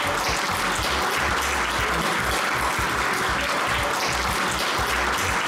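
Audience applauding: a large roomful of people clapping steadily.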